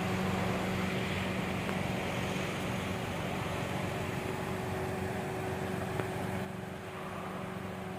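Steady vehicle drone: a constant low engine hum over a wash of road noise, easing slightly about six and a half seconds in.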